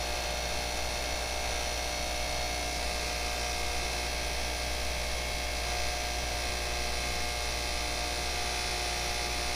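Bench grinder with a Cratex rubber-bonded diamond polishing wheel running with a steady electric motor hum that holds an even pitch throughout.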